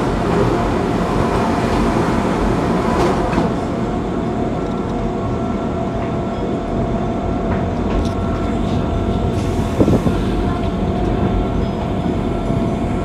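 Train running along the track: a steady rumble with a faint steady hum above it and a few light knocks, about three seconds in and near ten seconds.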